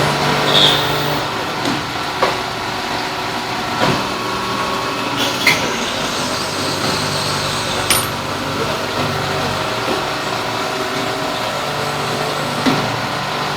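Industrial machinery running with a steady hum, broken by a handful of sharp clicks and knocks.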